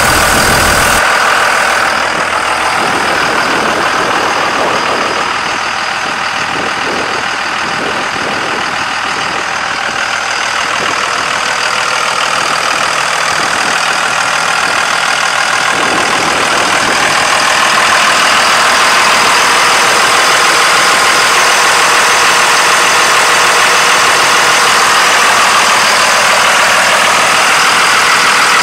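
2001 Dodge Ram 2500's 5.9-litre inline-six 24-valve turbo diesel idling steadily, a little louder from about two-thirds of the way through.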